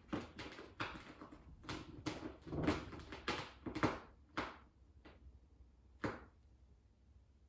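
Cat scratching with its front claws: a quick run of scratching strokes for the first four and a half seconds, then two single strokes about five and six seconds in.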